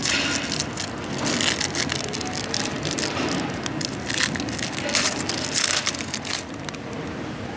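Foil wrapper of a Panini Prizm trading-card pack crinkling and crackling as it is handled and torn open, easing off near the end.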